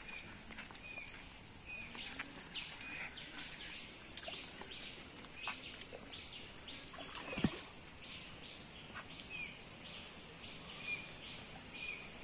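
Small birds chirping in short repeated calls over a quiet outdoor background, with one sharp knock a little past halfway.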